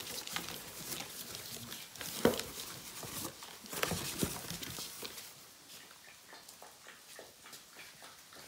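Torn cardboard box being handled, rustling and scraping as a hand reaches in, with a sharp knock about two seconds in and another burst of knocks around four seconds. After that, lighter scattered taps and scuffles.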